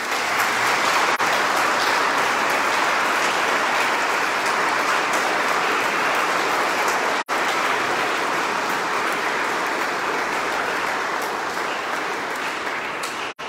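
Congregation applauding in a church, steady clapping that tapers slightly near the end. The recording drops out for an instant about halfway through.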